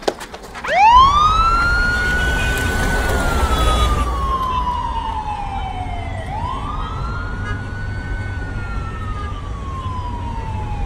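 Police van siren wailing: it starts about a second in, sweeps quickly up to a high pitch, then falls slowly over several seconds, twice, over a low steady rumble.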